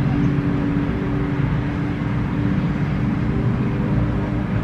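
Steady car cabin noise: engine hum and road noise from inside a moving car.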